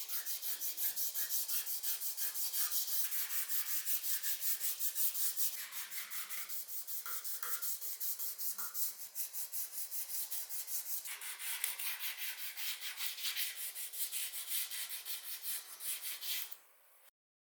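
Abrasive rubbing on a die-cast model car part: fast, even back-and-forth strokes, about five a second. It stops abruptly near the end.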